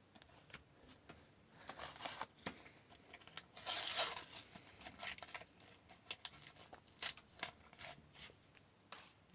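A Topps NHL sticker pack being torn open and the stickers inside handled: a string of small clicks and rustles, with a longer tear about four seconds in.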